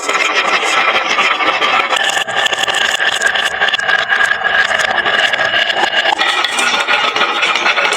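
Glass marbles rolling and clattering down a wooden marble-run slope: a steady dense rolling rumble full of small clicks.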